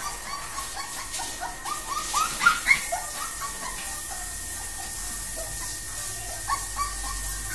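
Puppy whining at a barred gate to be let outside: short, high-pitched whimpering cries in quick runs. Two louder cries come about two and a half seconds in, and the cries grow sparser after that.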